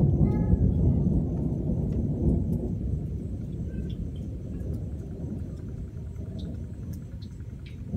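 Thunder rolling in a low rumble, loudest in the first couple of seconds and slowly dying away.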